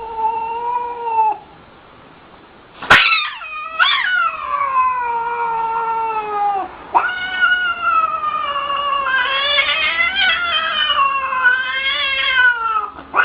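Domestic cat yowling in long, drawn-out, wavering calls: a short call at the start, a sharp click about three seconds in, then two long wails that slowly fall in pitch.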